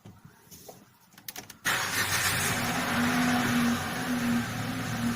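Renault Triber's three-cylinder petrol engine starting: a few faint clicks, then it catches suddenly about a second and a half in and runs at a fast idle of about 2000 rpm, the raised cold-start idle after the car has stood for several days.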